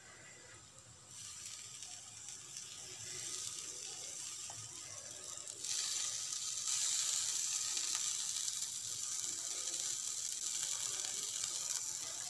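A paratha sizzling on a hot tawa, a steady hiss that grows louder about a second in and again around the middle.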